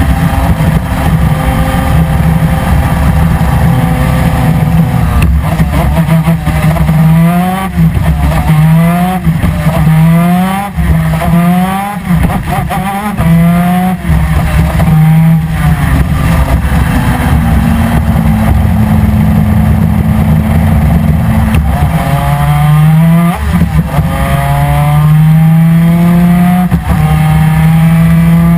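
A 250 cc two-stroke twin-cylinder superkart engine at racing speed. Through the middle its pitch climbs and drops several times in quick succession as it goes through the gears, then it holds steadier for a few seconds before climbing again near the end.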